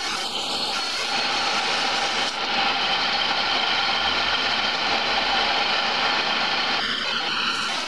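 Wood lathe running steadily, spinning a pine handle blank while it is worked by hand. The motor's even hum comes with the hiss of the tool on the turning wood.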